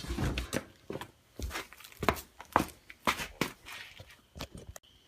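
Handling noise: a string of irregular sharp clicks and knocks with rustling, spaced unevenly.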